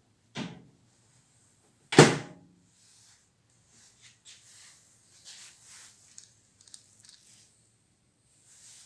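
Two knocks of hard objects, a lighter one near the start and a much louder one about two seconds in, followed by faint scattered clicks and rustling of handling.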